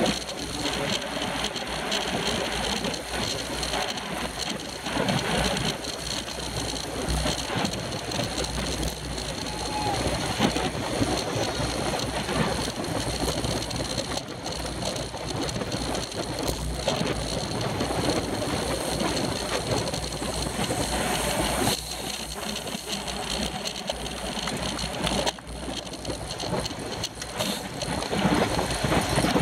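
Wind rushing over a bicycle-mounted action camera's microphone at racing speed, mixed with tyre and road noise from a bunch of road bikes riding close together. The level dips briefly about 25 seconds in.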